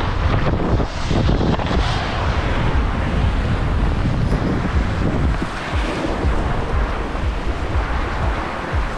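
Wind buffeting the microphone of a camera worn by a skier moving downhill: a loud, steady rush with low rumbling gusts.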